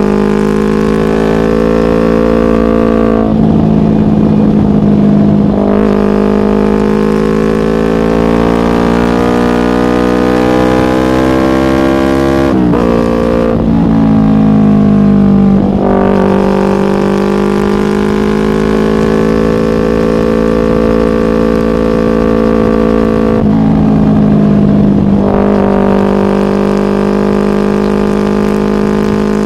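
Yamaha MT-25 parallel-twin engine running through a Shadux racing exhaust, holding a loud, steady droning note. Its pitch shifts three times, about 3 seconds in, around 13 seconds, and near 24 seconds.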